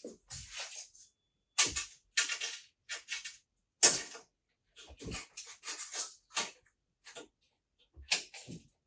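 Irregular short clicks, knocks and scrapes as a tape measure is handled against a display case shelf while the shelf is being measured.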